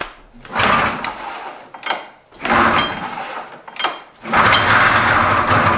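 Old Polaris snowmobile's two-stroke twin engine being pull-started: three pulls on the recoil starter, each a burst of cranking and firing, the third the longest, about a second and a half, as the engine catches and runs briefly for the first time after its rebuild.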